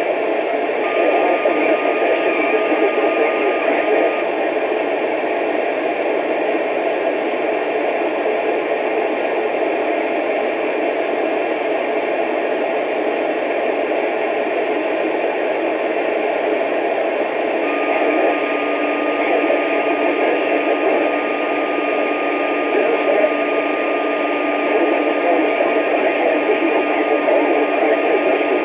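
Two-way radio receiver hiss, steady and unbroken, with a thin steady whistle coming in briefly about a second in and again from about two-thirds of the way through, joined the second time by a lower steady tone.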